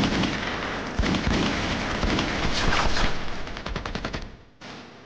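Battle gunfire: rapid rifle and machine-gun shots crackling over one another. The firing fades down a little after four seconds in.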